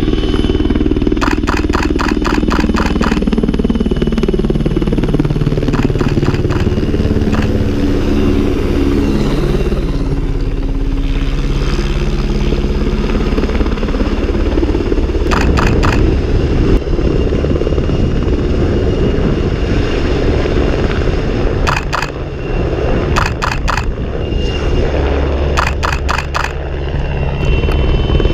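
Helicopter flying low: a loud, continuous rotor and engine drone whose low tones shift in pitch as it manoeuvres. Several short clusters of crackling clicks break in.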